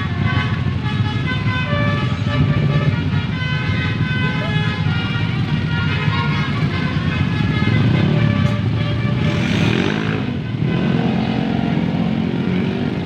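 A bus's telolet multi-tone musical horn, Basuri type, playing a melody of stepped notes over the low running of its diesel engine. About nine seconds in, a short hiss cuts across it.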